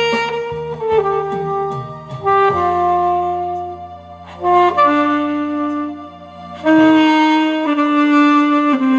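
Alto saxophone playing a slow, sustained melody in held notes over accompaniment with steady low bass notes, with brief breaks between phrases about four and six seconds in.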